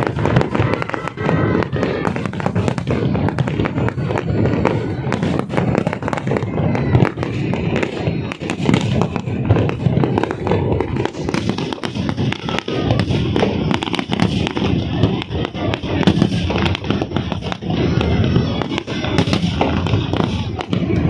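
A fireworks display going off in a rapid, continuous barrage of bangs and crackles.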